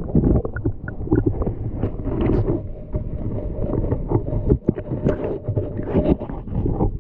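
Muffled rumbling with frequent knocks and clicks, picked up by a camera submerged in an ice-fishing hole as it is handled in the water.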